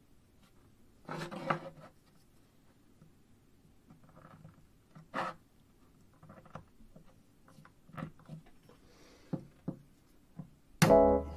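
Quiet handling of a small hand awl with a wooden handle and steel blade: a brief rustle, then scattered light clicks and taps as its point is pressed into leather and then into a soft wooden block. Near the end a loud sudden note with ringing overtones cuts in and carries on.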